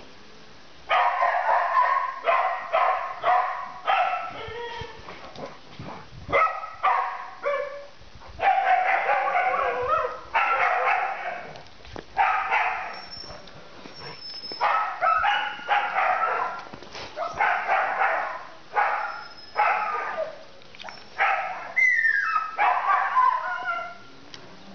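A dog yelping and whining in repeated runs of short, high calls, with a falling whine near the end.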